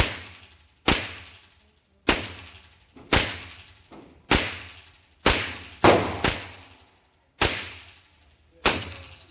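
About nine single .22LR shots from an AR-15 with a CMMG .22 conversion kit, fired one at a time at roughly one a second. Each is a sharp crack with a short echoing tail.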